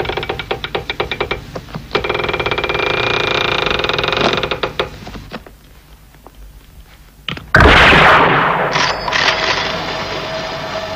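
Sound effects of cable-car winch machinery: a rapid mechanical clatter and whirring, then about seven and a half seconds in a sudden loud crash with a trailing hiss as the cut haul cable gives way, followed by a steady hum with a held tone.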